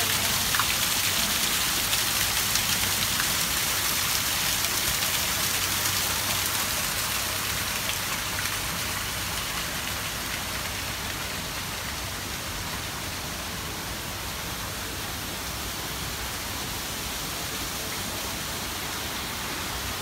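Water splashing down a small artificial rock waterfall, a steady rushing splash that grows fainter after about six seconds.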